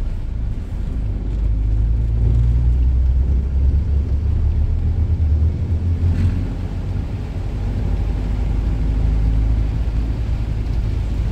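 Volvo FH540 truck's diesel engine running steadily while driving, a low rumble heard from inside the cab.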